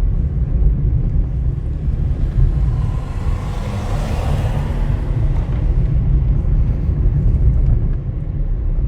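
Car driving slowly, heard from inside the cabin: a steady low rumble of engine and road, with a swell of hiss between about three and five and a half seconds in.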